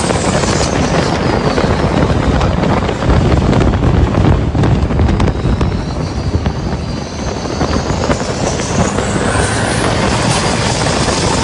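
Exposed stern-mounted engine of a Thai-style longtail boat running hard at speed, a loud steady engine noise mixed with rushing wind and water.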